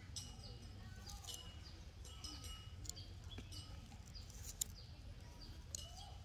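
Faint bird chirps in the background, a series of short high calls, some sweeping downward, over a steady low rumble. A couple of sharp clicks come near the middle.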